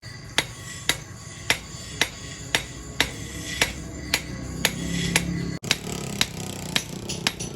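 Hammer blows on steel at an anvil, about two a second, each with a short metallic ring, as a blacksmith forges an axe head from truck leaf-spring steel.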